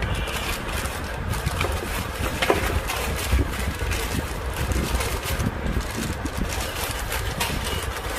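Steady low rumbling noise like wind buffeting the microphone, with a few faint scattered clicks.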